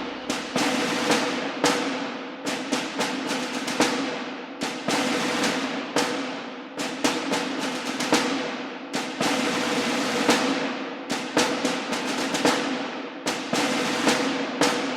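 A diesel machine engine runs steadily under a string of irregular sharp cracks, bangs and crashes as a building's structure is broken and falls in.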